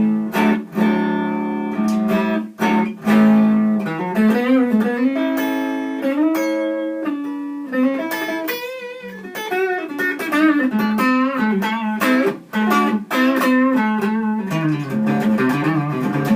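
Electric guitar on its neck pickup played clean through a small single-ended 6V6 tube amp into a Celestion Vintage 30 speaker, with no effects: picked single notes and chords, with string bends and vibrato in the middle.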